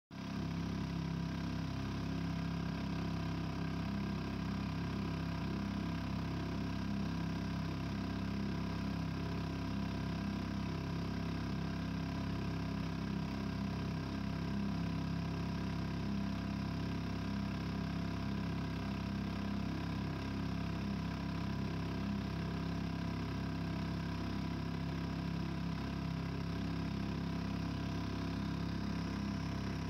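A boat's outboard motor running at a steady speed, an even drone with no change in pitch.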